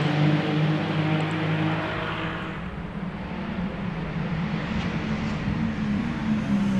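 Race car engine running at high speed on a track, its steady engine note fading away over the first few seconds as it moves off. Near the end an engine grows louder again.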